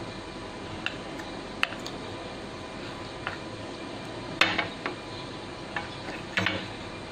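A handful of sharp, scattered clinks and knocks over a steady background hum, the loudest about four and a half seconds in.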